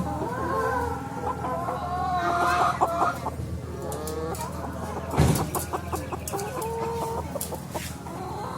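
A crowd of kampung chickens in transport crates clucking and squawking over one another, with a loud thump about five seconds in.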